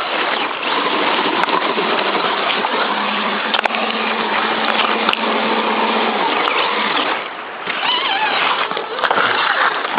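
Creek water splashing and rushing around an Axial SCX10 RC crawler, with a steady hum from the truck's electric motor and drivetrain for a few seconds in the middle. The driver says something is loose in its transmission.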